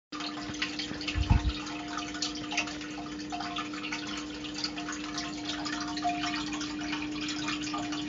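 Water dripping and trickling, many small irregular drips over a steady low hum. A single low thump about a second in is the loudest sound.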